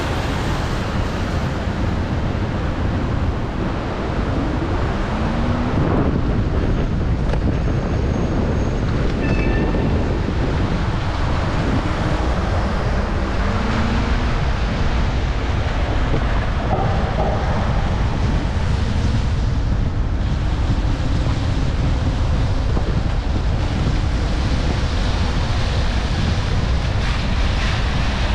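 Steady wind rush over the microphone and wet road noise from a bicycle ride in the rain.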